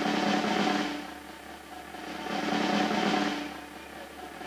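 Snare drum roll, swelling louder and fading back twice.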